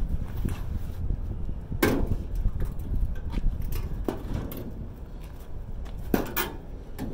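Scrap being handled in a dumpster: scattered knocks and clatters of debris, the three loudest about two, four and six seconds in, over a steady low rumble.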